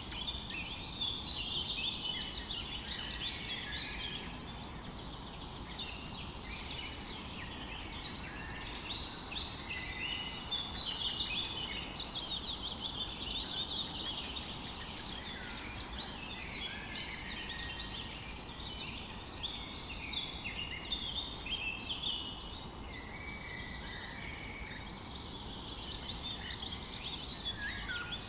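Dawn chorus of many songbirds singing at once: overlapping chirps, whistles and trills with no pause, over a faint steady outdoor background noise.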